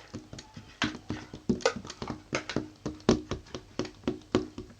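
Homemade glue-and-dish-soap slime being squeezed and handled, giving a quick run of irregular wet clicks and smacks, about two or three a second.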